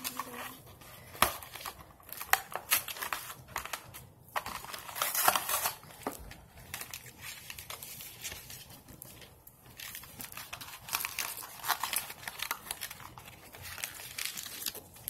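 Paper wrapper and cardboard box of a fast-food burger crinkling and rustling as the burger is unwrapped, in irregular bursts with sharp crackles.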